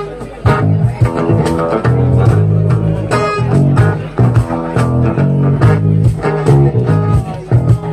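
Guitar strummed in a steady rhythm, playing chords through an instrumental passage of a song with no singing.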